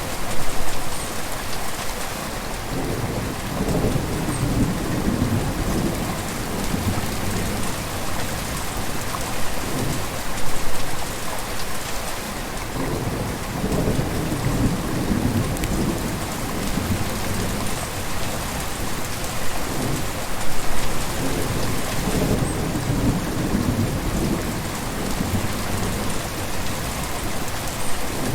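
Steady rushing of flowing river water, with a deeper swell of water sound about every ten seconds.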